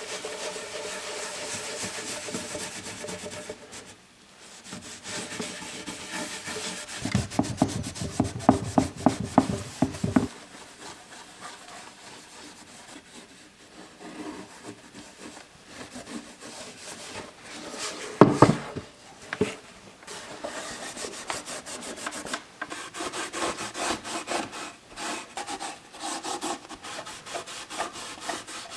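Hand work on a wooden box: repeated rubbing and scraping strokes on wood, with a quick rhythmic run of strokes partway through and one loud knock later on.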